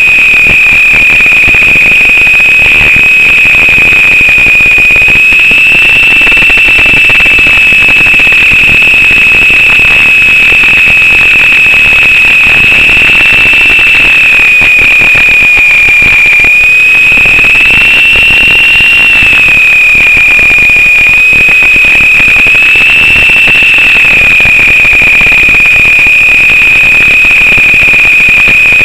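Lama coaxial RC helicopter's electric motors and rotors giving a loud, steady high whine that wavers slightly in pitch with throttle, over constant hiss. Picked up by the helicopter's onboard camera mic and sent over an analog 5.8 GHz audio link.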